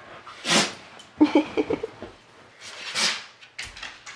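A dog making two short, sharp snorts, with a brief, low, pulsing grumble between them.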